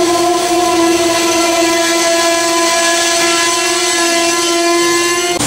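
Amtrak Northeast Regional passenger cars rolling past close by, with a loud steady pitched tone held over the rumble of the cars. It cuts off sharply near the end.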